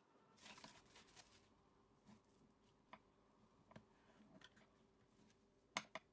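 Faint handling sounds: cling film rustling briefly as it is pulled away, then light taps and one sharper metallic click near the end as the adjustable stainless-steel cake ring is handled and unclipped.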